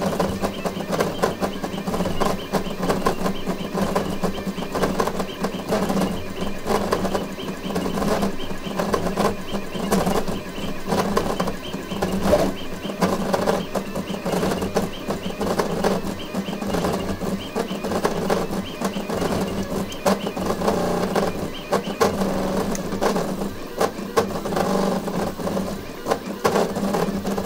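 Voron 0 CoreXY 3D printer running a high-speed print at about 350 mm/s with 150k acceleration: its stepper motors buzz and chatter without a break as the toolhead darts and reverses, over a steady hum.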